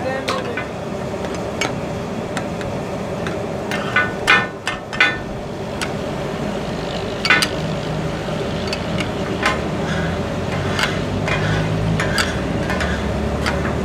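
Steel spatulas clanking against a large flat griddle as goat offal is chopped and turned for taka-tak, over a steady sizzle of frying meat. The strikes come irregularly, with a burst of loud clanks about four to five seconds in and another a couple of seconds later.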